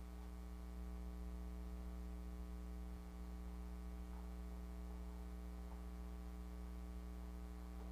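Steady electrical mains hum with a stack of buzzy overtones, carried through the sound system's audio feed.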